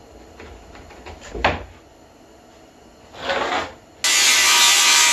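Plywood being handled, with light knocks and one sharp knock, then a power saw cutting plywood: a loud, steady noise that starts abruptly about four seconds in.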